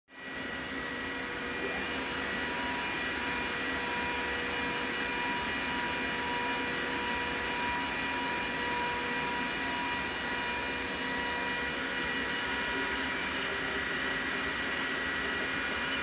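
Glowforge Plus laser cutter's cooling fans and an external exhaust fan running: a steady rush of air with several steady whining tones over it.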